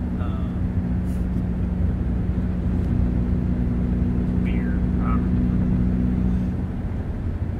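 Car interior while driving: a steady low rumble of road and engine noise with a constant drone.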